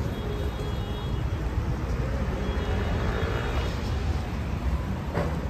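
City street traffic going by, with a steady low rumble and one vehicle swelling louder about three seconds in.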